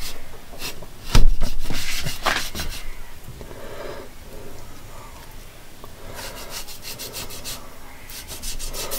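Kitchen knife cutting and scraping fat off a raw leg of lamb on a plastic cutting board, with a thump about a second in and runs of quick sawing strokes later on.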